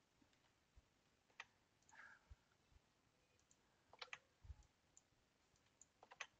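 Faint computer mouse clicks against near silence: a single click, then a quick double click about four seconds in, and a few more near the end.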